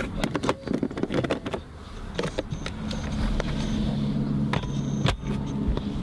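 Plastic clicks and knocks as a caravan toilet cassette is slid home into its hatch, then a sharper knock around five seconds in as the hatch door is shut. A steady low hum runs underneath from about two seconds in.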